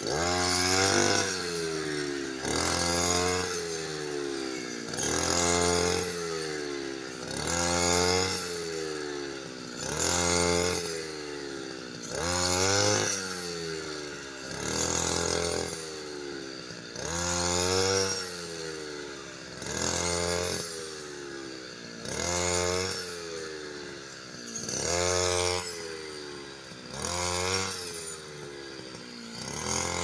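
Petrol brush cutter with a wheat-harvesting blade, its engine revving up and dropping back to idle about every two and a half seconds as each swing cuts through standing wheat.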